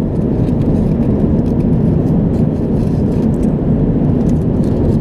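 Steady, loud low rush of an airliner cabin in flight, from the engines and air flow. Faint crinkling of aluminium foil is heard as a hot-meal container's lid is peeled back.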